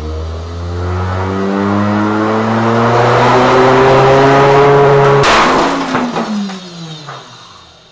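An RCA Victor Red Seal long-play record spun up on a motor-driven platter, its whine rising steadily in pitch until, about five seconds in, the record shatters with a sharp crack. Fragments knock against the steel drum and the whine falls away as the platter winds down.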